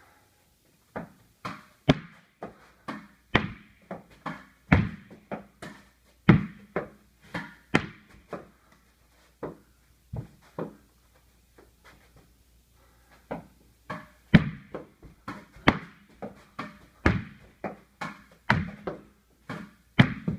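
Tennis ball struck with a racket and rebounding off the walls and floor of a small bare room: an irregular run of sharp smacks and thuds, each with a short echo. There is a lull of a few seconds around the middle.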